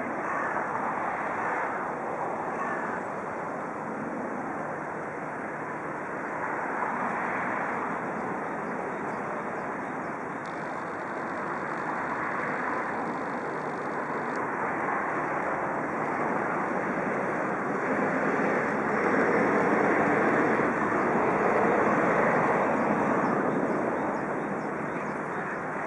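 Steady rushing outdoor background noise with no distinct engine tone or knocks, swelling louder for a few seconds about two-thirds of the way through.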